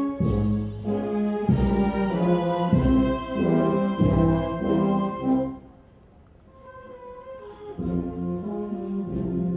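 Marching brass band playing a processional march: sustained brass chords over a steady low beat about every second and a quarter. A little past halfway the music drops to a brief lull, then picks up again more softly.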